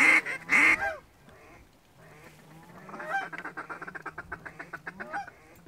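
Canada goose calling: a few loud honks in the first second, then after a short pause a fast run of clucks, about eight a second, with a honk near each end.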